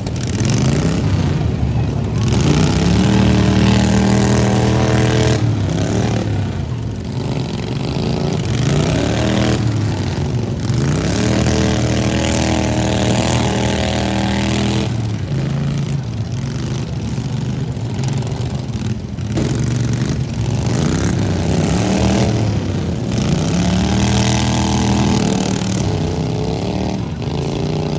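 Small lawn mower engines of derby mowers running hard and revving up and down over and over.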